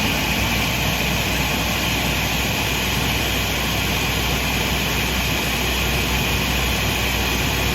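Electric kitchen blender motor running at one steady speed, a loud, even whir.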